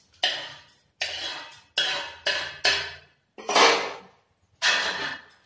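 Whole spice seeds tipped off a plate into a stainless-steel mixer-grinder jar in a series of sudden rattling pours against the steel, mixed with the clatter of kitchen utensils being handled, about seven separate sharp bursts that each die away within half a second.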